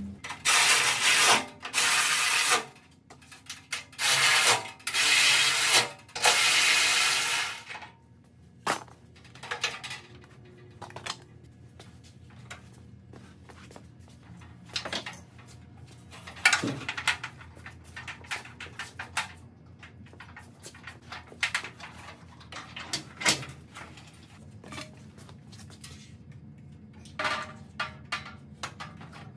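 Five loud bursts of a power tool, each about a second long, in the first several seconds. After them come scattered light clicks and metallic knocks as parts and tools are handled around the radiator support.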